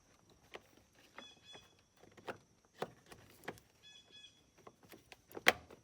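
Scattered sharp clicks and taps of plastic steering-column parts on a 2006 Jeep Wrangler being worked and snapped into place, the loudest click near the end. A few faint short chirps sound between them.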